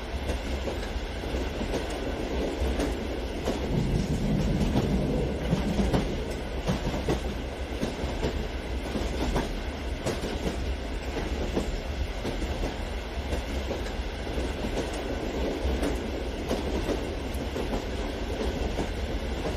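Long electric model passenger train rolling steadily along its track, with a constant rumble and frequent light clicks of the wheels over the rail joints.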